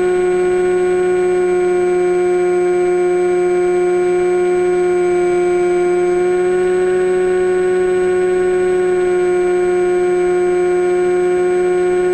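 Steady electric whine of a model plane's brushless motor under constant throttle, heard through the FPV video downlink with a layer of hiss. The pitch shifts slightly about halfway through.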